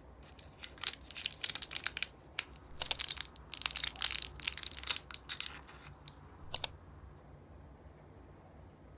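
Foil candy and bubble gum wrapper crinkling in the hands in a quick run of short crackly bursts, which stop about two-thirds of the way in.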